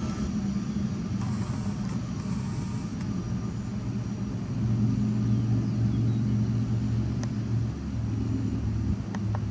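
The four turbofan engines of a Boeing C-17 Globemaster III running at taxi power as it taxis after landing: a steady low rumble with a faint high whine, getting louder about halfway through as the aircraft turns toward the listener.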